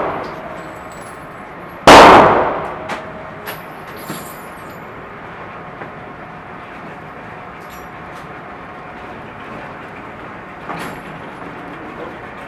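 A single loud gunshot about two seconds in, ringing off the hard walls of an indoor range as it dies away over about a second. A few faint knocks follow over steady background noise.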